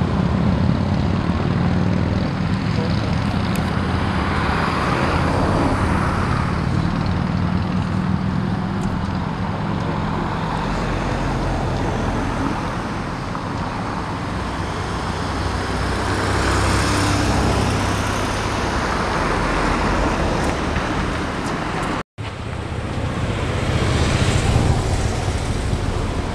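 Steady outdoor street noise: a low rumble with hiss, like wind on the microphone mixed with road traffic, swelling a little around the middle and breaking off for a moment about 22 seconds in.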